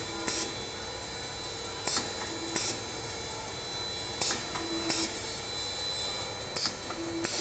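Automatic bottle-filling machine running: a steady mechanical hum with a faint high whine, broken every second or two by short hisses and clicks.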